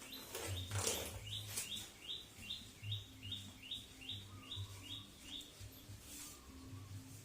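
A small bird chirping over and over: short falling chirps, about two a second, that stop about five seconds in. A brief rustle about a second in.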